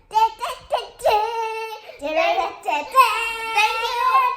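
A child singing wordless or sung phrases in a high voice, with held notes that slide up and down.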